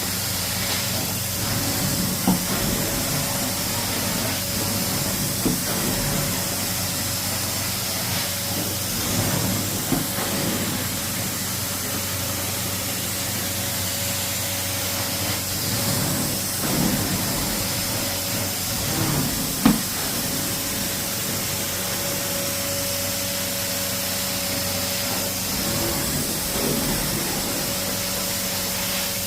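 Carpet extraction cleaning machine running steadily, a constant hiss of spray and suction over a steady motor hum, with a few light knocks, the sharpest about twenty seconds in.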